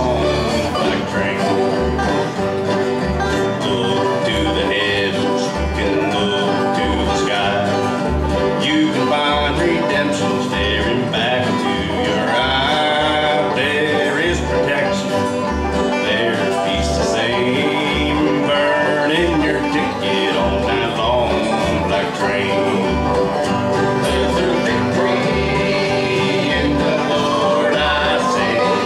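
Live bluegrass band playing a country gospel tune in G: upright bass keeping an even beat under strummed acoustic guitar, fiddle, dobro and banjo.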